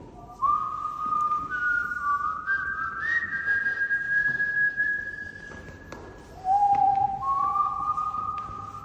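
Whistling in long, steady held notes, each sliding up slightly into pitch, with two notes sounding together for much of the time. A fresh, lower note comes in at about six and a half seconds.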